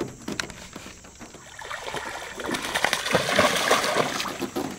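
A hooked bass splashing and thrashing at the water's surface. The splashing builds about halfway through and is loudest a little before the end.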